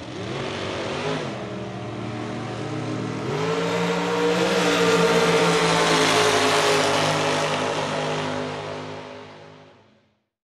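Drag-racing dragster's V8 engine running, then revving up sharply about three seconds in as it accelerates away. It is loudest around five to six seconds in, its pitch slowly falling as it fades out near the end.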